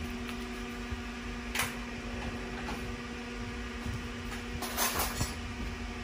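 Steady low mechanical hum, with brief rustling knocks about a second and a half in and twice more near the end.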